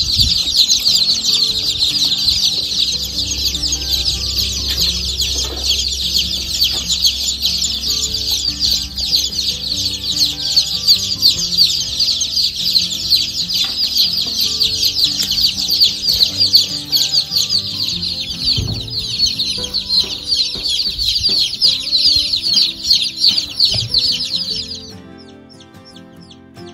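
A large crowd of day-old Rhode Island Red and Black Australorp chicks peeping nonstop, many high chirps overlapping into one dense chorus. About twenty-five seconds in it drops away suddenly to fainter, scattered peeping.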